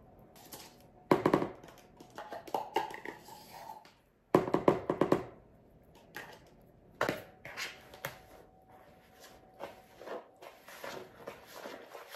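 Kitchen handling noises as yogurt is emptied from plastic containers into a plastic mixing bowl, with two louder bursts about a second in and around four to five seconds in and a knock near the middle. Then a spatula stirs and scrapes cake batter in the bowl with light, irregular ticks.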